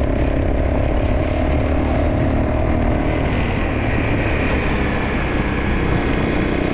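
Dirt bike (motocross bike) engine running steadily while riding along a gravel road.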